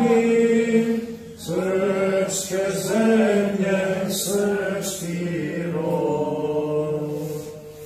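Voices singing a slow Orthodox church chant in long held notes, with a short break about a second and a half in, fading near the end.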